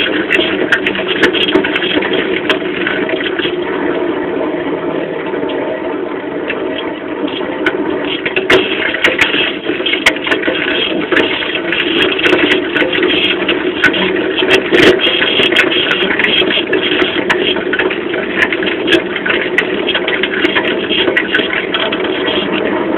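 Bicycle being ridden with the microphone close to the rear wheel: steady rolling noise from the tyre, broken by frequent clicks and knocks from the frame, chain and coil-over hydraulic rear shock as it goes over bumps.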